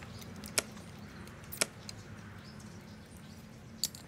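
Small river clam shells clicking as they are handled and dropped on a plate while the meat is picked out, three short sharp clicks spread over a few seconds. A faint steady low hum lies underneath.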